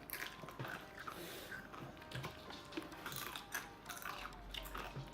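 Quiet chewing and crunching of sweet potato chips, with small irregular clicks.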